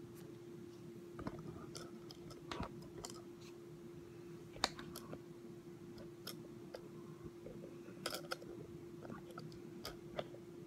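Faint scattered clicks and small knocks, the first few as a phone camera that fell over is handled and set back upright. A steady low hum runs beneath them.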